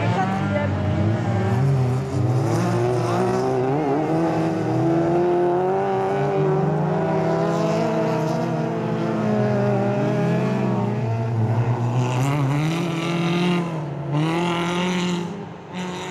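Several race cars' engines revving on a dirt circuit, overlapping, their pitch rising and falling as they accelerate out of corners and lift off into them. Near the end, two bursts of rushing noise come in over the engines.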